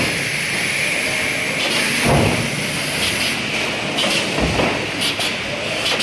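Stainless steel stamping production line running: a heavy thud from the press stroke about every two seconds, twice here, over steady machinery hiss.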